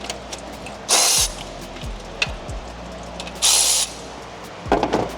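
Two short hissing bursts, each about half a second long, the second a little longer, then a brief clatter of metal near the end. Background music with a deep, falling bass beat runs underneath.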